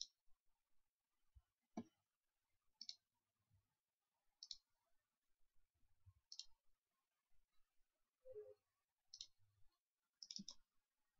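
Faint computer mouse clicks, about six spaced a second or two apart, ending in a quick double click that opens a file.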